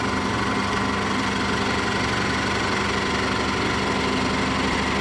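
Hafco 1 hp benchtop drill press running steadily under load, its bit boring into a block of wood: an even motor and belt drone with a steady hum over the noise of the cutting.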